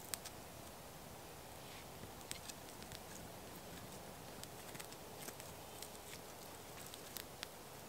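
Small campfire crackling: faint, irregular sharp pops and snaps from burning sticks.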